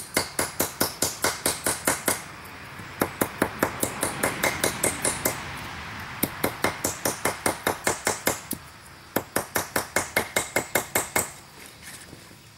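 Blacksmith's hand hammer striking hot steel on an anvil in quick runs of about five blows a second, shaping small forged cherry-blossom pieces; four runs with short pauses between them.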